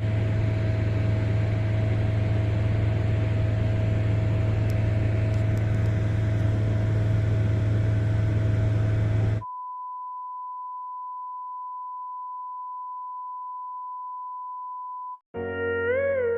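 A steady mechanical drone with a low hum and hiss that cuts off abruptly after about nine seconds. A single steady, pure beep tone follows for about six seconds. Electric-piano music starts near the end.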